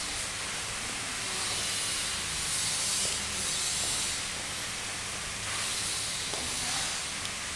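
Steady hiss of background noise with no distinct events, swelling a little about two and a half seconds in and again near the end.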